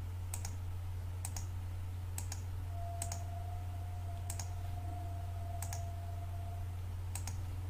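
Faint, irregular computer mouse clicks, roughly one a second, over a steady low electrical hum. A faint, thin, steady tone sounds through the middle few seconds.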